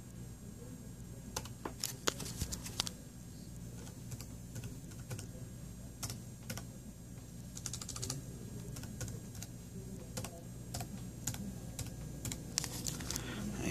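Typing on a Dell Latitude D830 laptop keyboard: irregular key clicks in short runs with pauses between them, over a faint steady hum.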